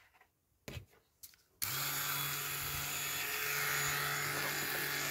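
Handheld rotary multi-tool switched on about one and a half seconds in, then running at a steady speed with an even whirring hum. Two light knocks come just before it starts.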